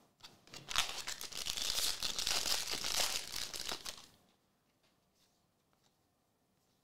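Crinkling, rustling handling noise of a stack of trading cards being flipped through by hand, stopping about four seconds in.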